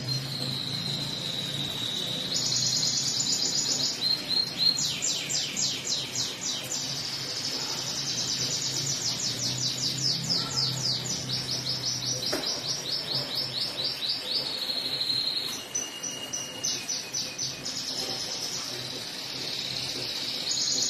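White-rumped shama singing after its bath: a long, varied run of fast repeated notes and trills, changing phrase every few seconds and broken by short held whistles.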